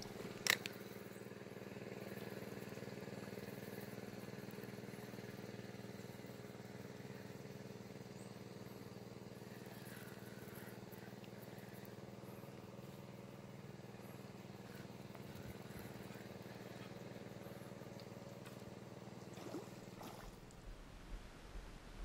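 A motor running steadily at one speed, a low even hum, with a single sharp click about half a second in.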